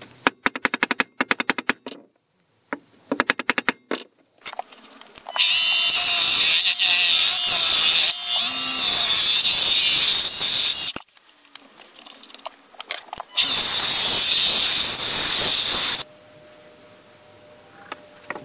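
A mallet gives a mahogany handle blank quick runs of rapid taps on a steel punch. Then a small wood lathe spins the blank while a turning tool cuts it round, a loud steady hiss of cutting wood in two long passes with a quieter pause between them.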